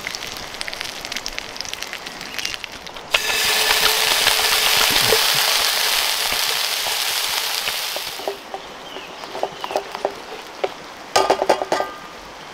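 Light crackling and bubbling, then about three seconds in a sudden loud sizzle as ingredients hit a hot frying pan on a camp stove. The sizzle hisses for about five seconds and dies down, and near the end there are a few sharp clinks.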